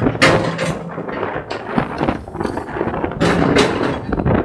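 Hydraulic excavator working rock at the water's edge: its engine runs under loud, irregular knocks and crashes. Two sharp crashes come close together near the start, and two more about three seconds in.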